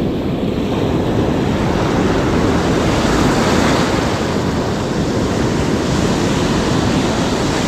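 Ocean surf breaking and washing up the beach, a steady loud rush of water that swells slightly a few seconds in.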